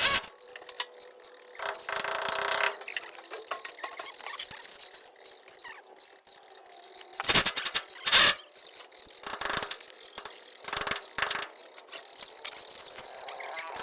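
Clatter of cleaning work: scattered sharp knocks and bangs, the loudest about eight seconds in, with a scraping, rustling stretch about two seconds in.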